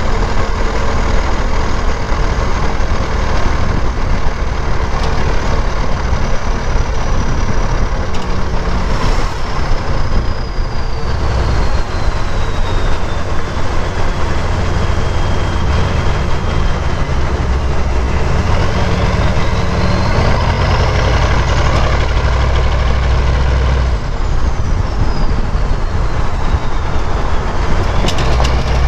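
Straight-piped 6.5-litre turbo-diesel V8 of a 1996 Chevrolet K1500 pulling uphill under load, its exhaust a loud low drone. Over it a high turbocharger whistle slowly falls in pitch, rises sharply about two-thirds of the way through, then falls again near the end.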